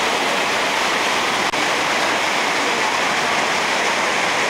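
Whitewater of a rocky river cascade rushing steadily over a natural rock slide, a loud, even sound of fast-flowing water.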